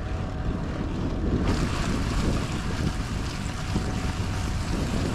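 Wind buffeting an action camera's microphone while a mountain bike is ridden, a steady rumble with tyre noise underneath. About a second and a half in, a brighter hiss joins in.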